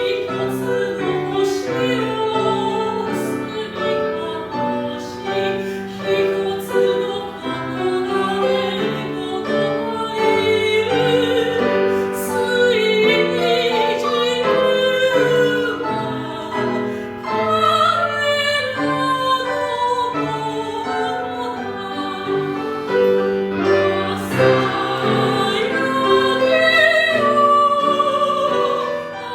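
Classical soprano singing an art song with vibrato, accompanied by piano.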